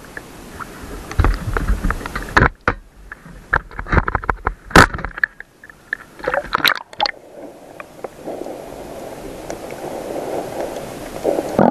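Water splashing and knocking against a camera at the sea surface as it dips in and out of the water, with several sharp knocks and sudden cut-outs. From about seven seconds in, a steady, muffled underwater rush takes over.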